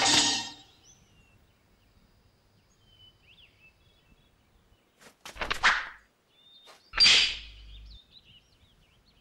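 Two sword swishes from a kung fu film soundtrack: the first about five seconds in, led by a few quick sharp clicks and falling in pitch, the second louder, about seven seconds in. Faint birds chirp in the quiet between them.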